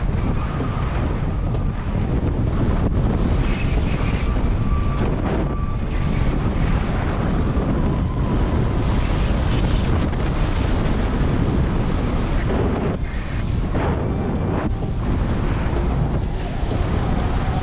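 Wind buffeting a GoPro Hero 7's microphone at speed, mixed with the steady scrape of edges carving over groomed snow on a fast downhill run.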